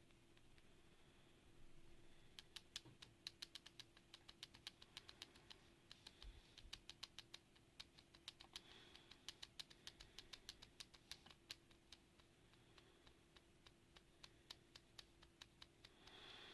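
Faint typing on a mechanical keyboard: quick, irregular key clicks, several a second, starting about two seconds in and thinning out near the end.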